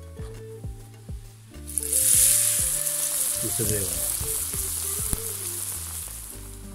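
Beer-battered sea bass fillet going into hot oil: a sudden loud sizzle about two seconds in as the batter hits the oil, then a steady frying hiss that slowly eases off.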